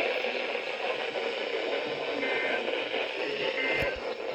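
NOAA weather radio receiver giving a steady hiss of static, with a few faint short high tones coming through about halfway in and again near the end.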